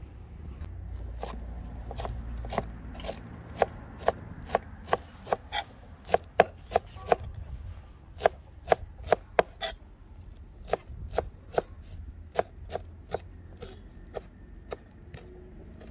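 A kitchen knife chopping fresh green herbs on a plastic cutting board: a steady run of sharp knocks about two a second, briefly quicker and louder around the middle.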